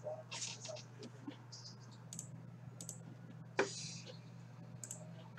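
Scattered light clicks and rustles, with one sharper tap about three and a half seconds in, over a steady low hum.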